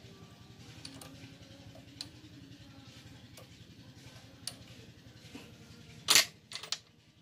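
Light metallic clicks of a hex key working the screws of a small metal lathe's quick-change tool post, roughly once a second. About six seconds in, a much louder metal clank, then a second one just after.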